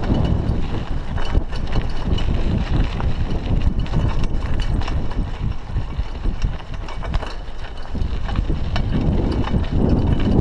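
Raleigh Ascent 26 mountain bike riding over a rough, gravelly dirt road: tyres crunching and the bike rattling in many quick, irregular knocks over a steady low rumble.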